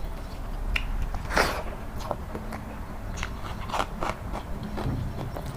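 A person eating egg curry: chewing, with scattered wet mouth clicks and crunchy bites, the loudest about a second and a half in.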